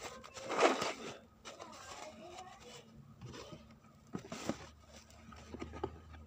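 Rustling and crinkling of a clear plastic bag being handled, loudest about half a second in, with a few sharp clicks about four seconds in.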